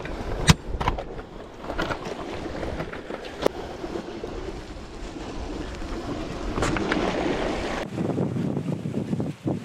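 Waves washing on a rocky shore, with wind buffeting the microphone. A few sharp clicks or knocks cut through, the loudest about half a second in.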